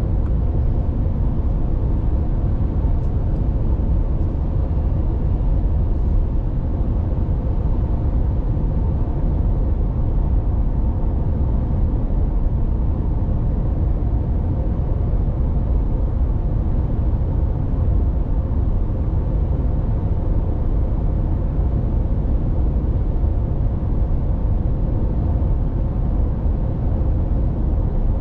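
Cabin sound of a 2022 Ram 1500 EcoDiesel pickup cruising steadily at about 64 mph: an even, low road-and-tyre rumble with a faint steady hum from the 3.0-litre V6 turbodiesel and drivetrain.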